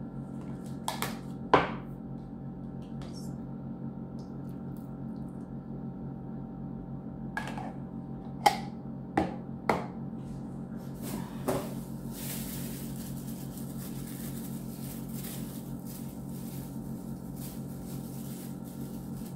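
Plastic kitchenware handled on a table: a handful of sharp clicks and knocks from a plastic citrus juicer and utensils in the first half, then thin plastic food-prep gloves crinkling and rustling as they are pulled out through the second half. A steady hum runs underneath.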